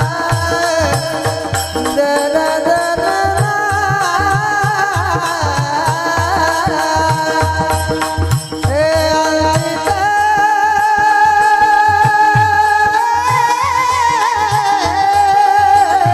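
A male singer holding long, ornamented notes of a devotional bhajan, the pitch gliding and bending, over a steady beat on a low drum.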